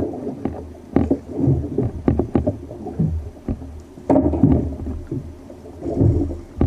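Small waves slapping and knocking against a fishing kayak's hull in irregular bursts about once a second, over a steady low rumble.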